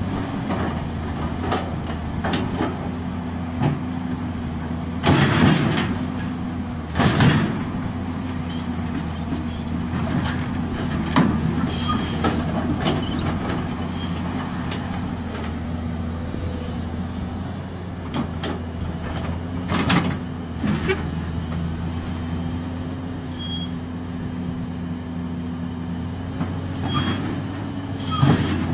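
XCMG XE215BR crawler excavator's diesel engine running steadily under load while the machine climbs onto a lowboy trailer, with a handful of loud metallic clanks from the steel tracks and undercarriage.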